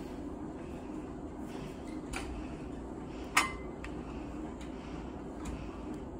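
Loaded barbell giving one sharp metallic clink with a short ring about three and a half seconds in, as the lifter takes his grip, over a steady low gym hum. A fainter tap comes a little after two seconds in.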